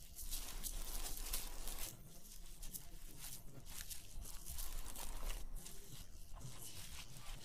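Wild boar rooting and moving through dry fallen leaves and twigs: irregular rustling and crackling of leaf litter.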